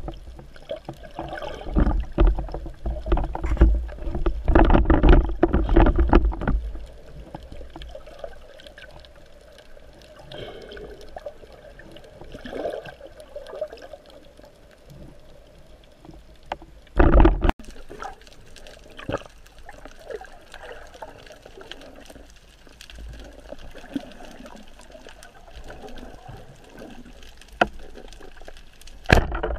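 Muffled underwater noise heard through a camera's waterproof housing: water sloshing and gurgling against the housing. It is louder and rougher for the first several seconds, with a brief loud burst about halfway and another near the end.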